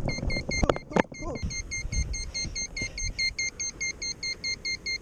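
A custom 5-inch FPV quadcopter's lost-model beeper sounding a steady run of short, shrill beeps, about four a second. This is the alarm that helps locate the drone after a crash. There are two sharp knocks about a second in.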